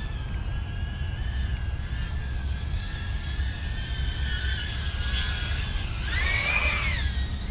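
BetaFPV Nebula 85x FPV whoop drone's motors and propellers whining in flight, the pitch wavering with throttle. About six seconds in, the whine swells louder and climbs, then falls in pitch over about a second.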